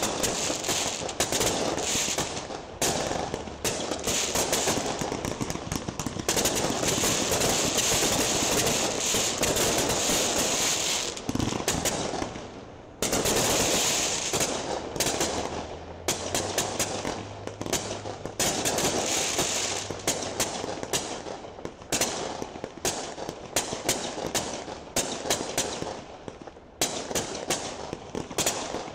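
Fireworks display: aerial shells bursting and crackling in a rapid, near-continuous barrage of sharp reports. The barrage eases briefly about twelve seconds in, then picks up again.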